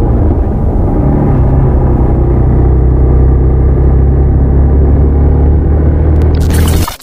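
Hero XPulse 200's single-cylinder engine running steadily under the rider as the motorcycle is ridden. Its note steps up slightly about a second in. Near the end the sound cuts off abruptly after a brief crackling burst.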